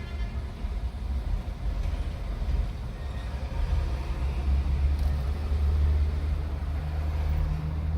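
Low, steady rumble of a motor vehicle engine running close by, growing somewhat louder about halfway through.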